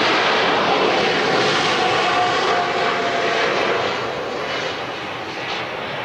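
Boeing 747-400F jet engines running as the four-engine freighter passes low on approach with its gear down. The roar is steady, with a faint tone in it, then fades in the last couple of seconds as the aircraft moves away.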